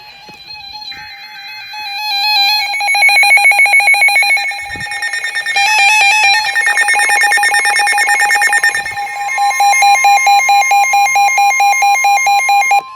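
NOAA weather radios alarming for a severe thunderstorm warning: a brief burst of data tones at the start, then several radios beeping in fast overlapping pulses that swell in loudness, joined about nine seconds in by a steady warning tone.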